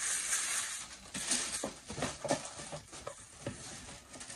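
Rustling and crinkling of a shoe dust bag as a platform wedge sandal is slid into it, with scattered small taps and knocks.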